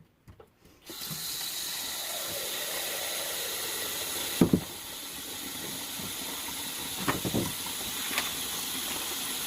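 A steady hiss that starts about a second in, with a few short knocks and rattles over it.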